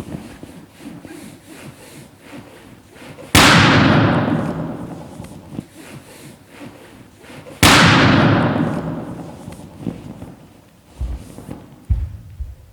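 Two latex balloons bursting with loud bangs about four seconds apart, each bang followed by a long echoing fade.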